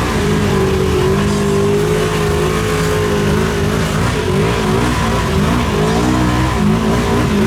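Side-by-side's engine held at high revs, its pitch wavering up and down as the throttle is worked during a run through a deep mud hole.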